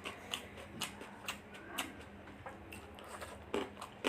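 Close-up chewing of chicken fried rice: wet mouth clicks and smacks at an uneven pace, about two a second.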